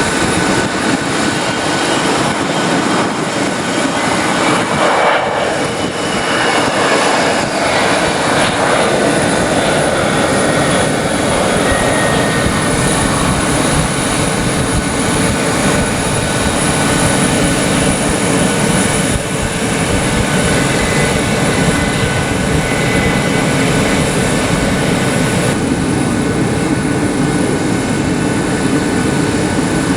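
Turbofan engines of an Embraer E550 business jet arriving, a loud steady jet noise with high whining tones, swelling about five to nine seconds in.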